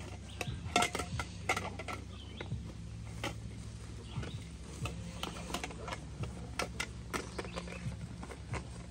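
Nylon tent carry bag and tent fabric rustling and crinkling as a tent is packed away, with scattered irregular clicks and knocks, most of them in the first second and a half. A bird chirps briefly about two and a half seconds in, over a low steady rumble.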